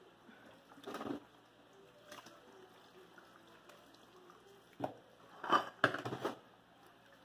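A few short bursts of clatter and rustling from household things being handled, the loudest cluster about five to six seconds in.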